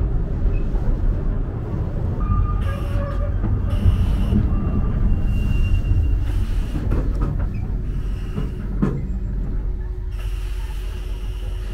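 Ikawa Line train running along the track, heard from inside the passenger car: a steady low rumble of wheels on rails. A faint high whine, typical of wheel squeal, comes in twice, about four seconds in and again near the end.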